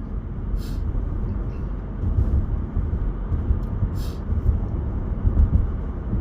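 Steady low road and engine rumble inside a moving car's cabin, with two brief hissing sounds, one near the start and one about four seconds in.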